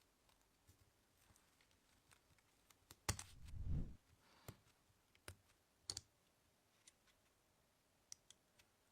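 Sparse light clicks and knocks of small hard parts being handled on a workbench. About three seconds in comes one louder knock followed by a short low rumble.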